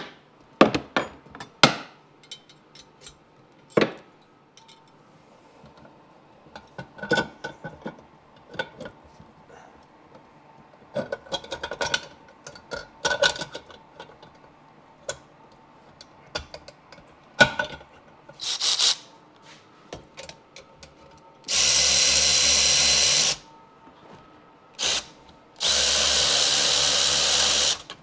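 Scattered metallic clicks and clanks of hand tools on engine fasteners, then a cordless power tool runs steadily twice, about two seconds each time, driving bolts.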